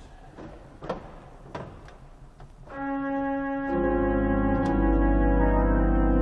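A few clicks and knocks at the organ console, then about three seconds in a Victorian pipe organ of 19 stops begins a sustained chord, with deep bass notes entering about a second later.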